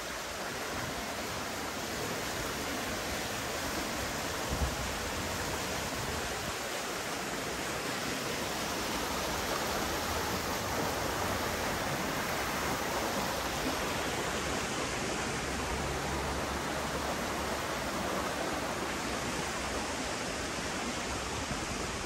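Shallow, fast-flowing stream rushing over a rocky bed: a steady rush of water, a little fuller in the middle.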